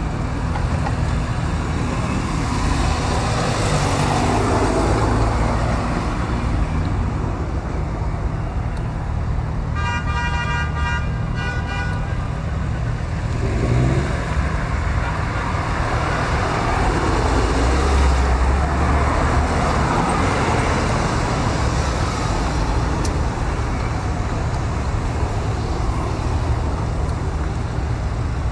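Fiat Coupé sports cars driving past one after another, engines running and swelling as each car goes by. About ten seconds in, a car horn toots several times in quick succession.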